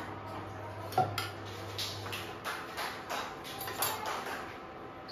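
A spoon clinking and scraping against a plastic blender jar and a bowl as yogurt is spooned in, with a sharper knock about a second in and a run of lighter clicks after.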